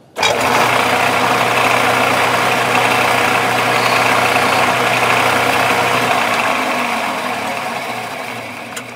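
A metal lathe switched on and running with a steady hum while a large centre drill is fed into the end of a brass bar. The sound starts abruptly, then dies away gradually over the last few seconds as the lathe runs down.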